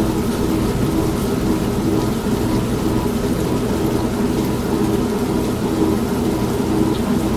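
Old manual washing machine running with a steady motor hum, mixed with continuous rain and thunder.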